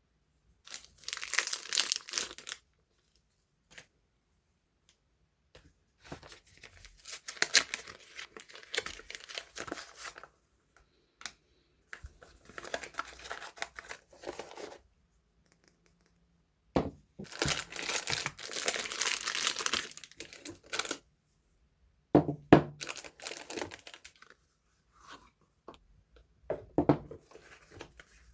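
Soap packaging being torn open and crinkled by hand, in about six separate bouts of tearing and rustling with short quiet pauses between them.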